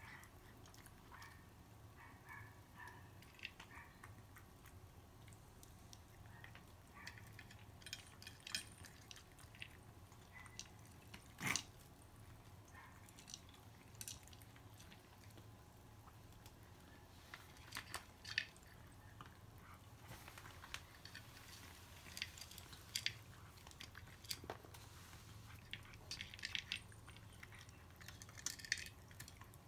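Two cats crunching dry kibble from their bowls: faint, scattered crunches and clicks, with one sharper click near the middle.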